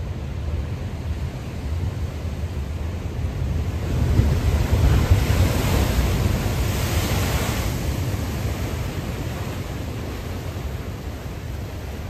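Ocean surf: a wave breaks about four seconds in, its rush of white water swelling for a few seconds and then fading, over a steady low rumble of wind on the microphone.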